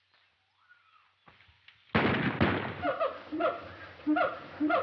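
Apes calling, as a film sound effect: about two seconds in, a sudden loud burst, then a run of short honking hoots that repeat about twice a second.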